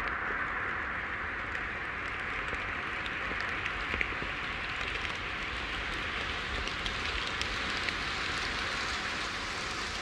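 Waves washing on a beach: a steady rushing hiss with faint crackles, slowly growing brighter.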